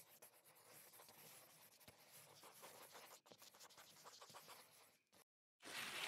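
Faint scratching of a pen nib drawn across paper, a dense run of tiny scratches, followed near the end by a louder, noisy swish about a second long.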